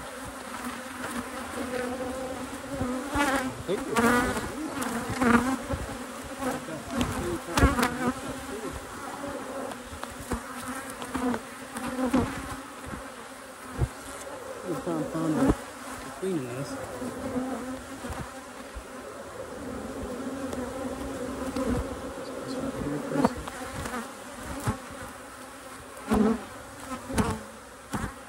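Honeybees buzzing at an open hive: a steady hum of many bees, with single bees whizzing past close by now and then, their pitch wavering. Short knocks and clicks come through at intervals.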